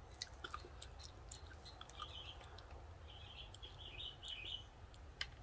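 Faint bird chirps in two short bouts, over scattered small clicks and wet ticks from fingers pulling the peel off a lemon slice.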